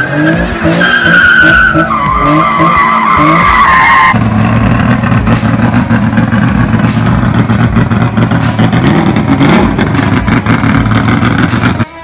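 Car tyres squealing under hard cornering in long, wavering tones that step in pitch, with the engine running beneath. About four seconds in the sound cuts abruptly to a classic race car's engine running with a steady low rumble.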